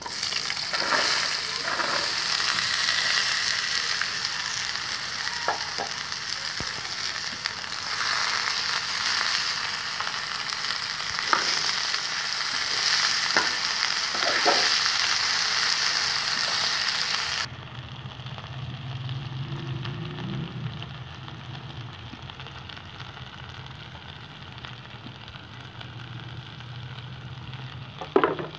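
Raw potato cubes sizzling loudly in hot oil in a pan, with a few sharp clinks and scrapes of a slotted metal spatula against the pan. About seventeen seconds in the sizzle drops suddenly to a much quieter frying with a low hum under it, and one sharp scrape of the spatula comes near the end.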